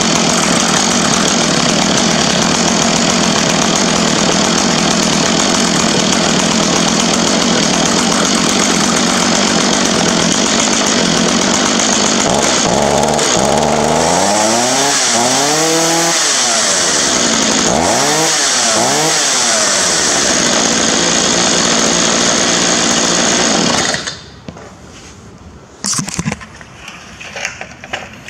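Stihl MS210C two-stroke chainsaw running steadily, revved up and back down twice about halfway through, then shut off suddenly. A few knocks and clatter of handling follow near the end.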